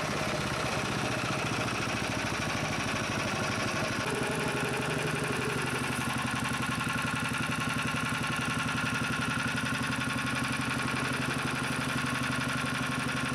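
Small single-cylinder petrol engine of a motorised snow tow idling steadily and evenly, then cut off abruptly near the end. An even idle after carburettor and throttle-spring adjustment: the engine is running as it should.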